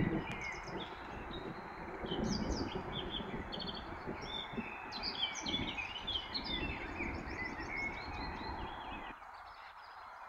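Several songbirds chirping and singing in quick, overlapping phrases over a low, uneven rumbling background of wind or distant thunder. The low rumble drops away near the end, leaving only the birds.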